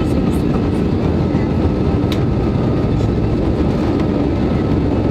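Inside the cabin of an Airbus A320 rolling along the runway: a loud, steady rumble of engines and wheels, with a faint steady tone above it. A single brief tick about two seconds in.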